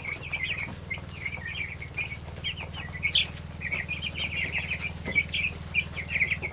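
A flock of young Cornish Cross meat chicks peeping constantly: many short, high chirps overlapping, with a steady low hum underneath.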